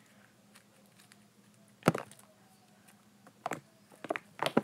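Very sticky slime being pulled and stretched between the hands, giving a few sharp sticky pops and clicks, the loudest about two seconds in and a cluster of smaller ones near the end.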